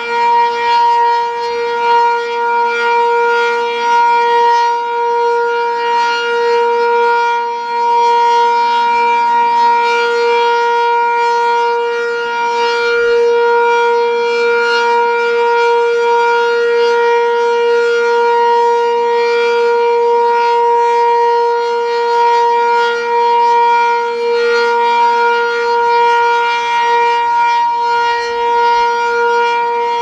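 Sentry 10V1T single-tone outdoor warning siren sounding a loud, steady tone that holds one pitch without rising or falling: the steady alert signal of a 3-minute siren test.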